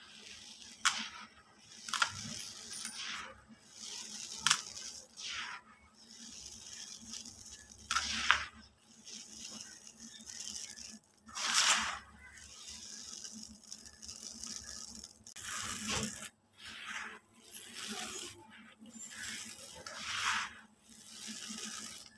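Hands crumbling and sifting dry cement powder mixed with crunchy white concrete pieces in a bucket: gritty, dusty pours and crunches in repeated bursts, with a few sharp clicks of small pieces striking the bucket.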